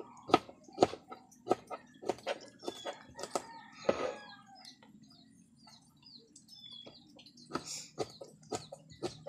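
Kitchen knife cutting through eggplant onto a plastic cutting board: sharp knocks about two or three a second, pausing for a few seconds midway and resuming near the end. Chickens cluck in the background.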